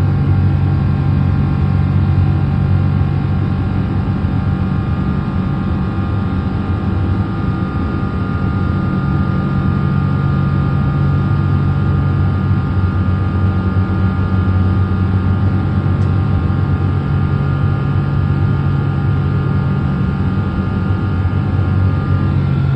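Boeing 777 jet engines running after takeoff as thrust is reduced: a loud, steady low rumble with a high fan tone above it that drifts slightly lower in pitch.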